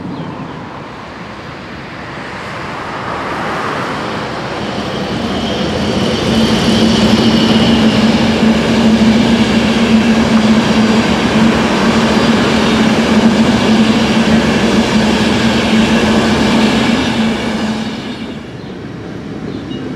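Long locomotive-hauled passenger train passing. The rumble of its wheels and coaches builds over the first few seconds, stays loud with a steady low hum under it for about ten seconds, then falls away near the end.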